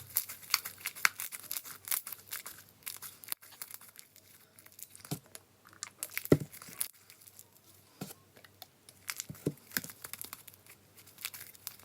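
Slime being worked by hand, giving many small crackling clicks, with a louder pop about six seconds in.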